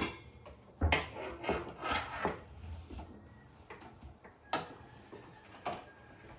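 Handling noise from an electric contact grill and its plug: a string of separate clicks and knocks, with a few dull thumps in the first two seconds, as the grill's lid is moved and the plug is fumbled against a wall socket.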